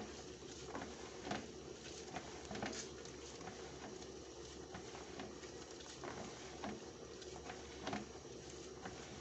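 Wet squelching, splatting and dripping as handfuls of grated coconut soaked in water are squeezed and kneaded to press out coconut milk, at an irregular pace over a steady low hum.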